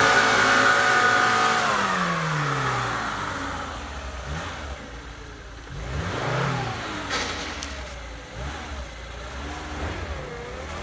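Off-road vehicle's engine revved hard and held high, dropping away after about three seconds, then revved in several shorter bursts: its wheels spinning on ice as it fails to get over the obstacle.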